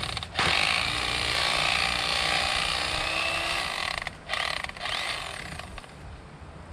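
Electric fillet knife running, its reciprocating blades buzzing as they cut through a fish fillet. It cuts out briefly about four seconds in, runs again, then fades away near the end.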